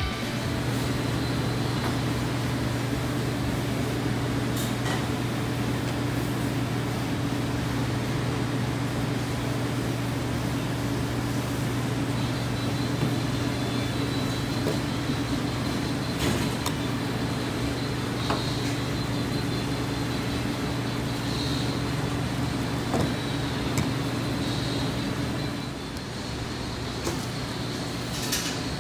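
Steady low mechanical hum of commercial kitchen machinery, with a few faint clicks and light knocks, dropping a little in level near the end.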